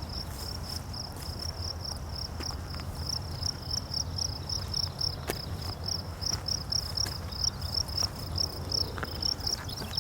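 A cricket chirping in a steady, even rhythm of about three high chirps a second, over a low rumble.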